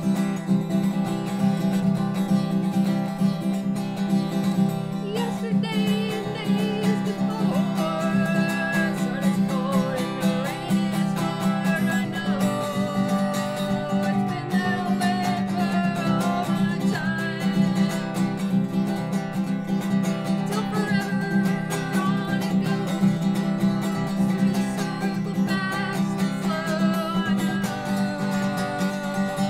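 Acoustic guitar strummed steadily, with a woman singing over it.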